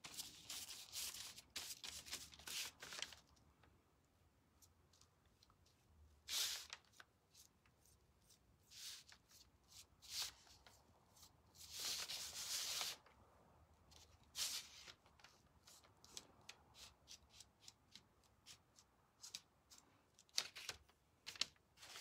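Faint, irregular scratchy rubbing and rustling: a chip brush and paper towel working antiquing wax into laser-cut wooden pieces. Short light clicks toward the end, from the wood pieces being handled on the tabletop.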